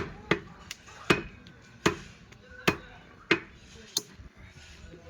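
A butcher's cleaver chopping through goat meat and bone, about eight sharp, separate blows at an uneven pace.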